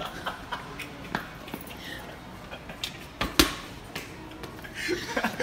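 Sharp thuds and knocks from a rubber playground ball being thrown and hitting things during a chase, with sneaker footsteps on a hard store floor; the loudest knocks come about three seconds in and again near the end.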